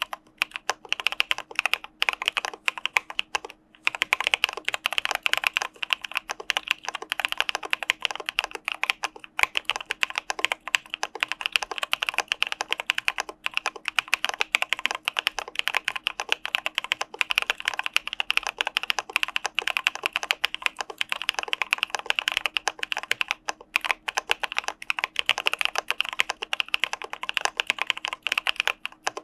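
Continuous typing on an Arisu Alice-layout mechanical keyboard with CPSD linear switches: a dense run of keystrokes, broken by a few short pauses.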